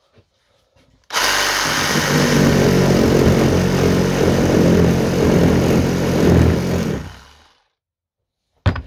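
Mako cordless reciprocating saw cutting through a thick wooden block: it starts abruptly about a second in, runs steadily for about six seconds, then winds down. A short knock near the end.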